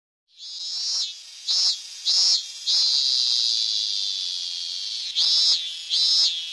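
A Hyalessa fuscata cicada singing: a loud, high, buzzing song that starts about a third of a second in and swells. It gives a few separate pulses, then holds one long steady note for over two seconds, then breaks back into regular pulses a little more than one a second.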